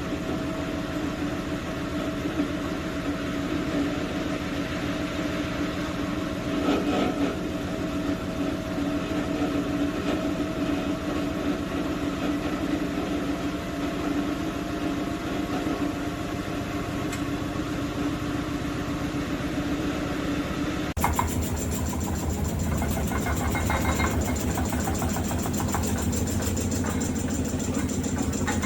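Cecotec Bolero Dresscode 7410 front-loading washing machine running with a steady mechanical hum. About two-thirds of the way in, the sound changes abruptly to a lower, rougher rumble.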